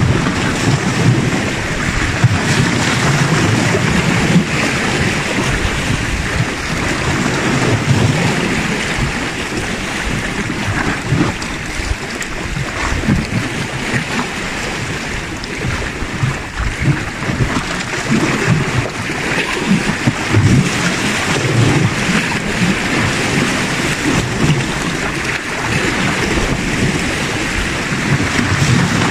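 Sea waves washing and splashing against shoreline rocks, with wind buffeting the microphone in irregular low gusts.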